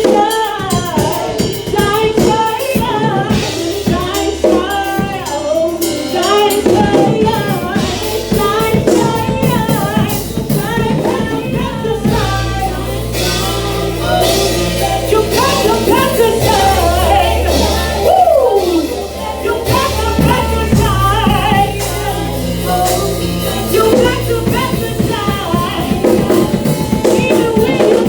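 A song playing: a singing voice over drums and a bass line, the bass growing deeper and fuller about halfway through.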